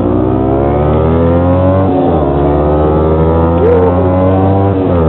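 Motorcycle engine pulling hard under acceleration, heard from on the bike. Its pitch climbs steadily and drops sharply at two gear changes, about two seconds in and again near the end.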